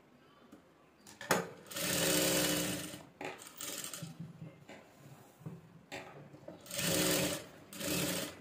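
Electric sewing machine stitching in three runs: a longer run of about a second, then two short runs near the end. A click comes just before the first run.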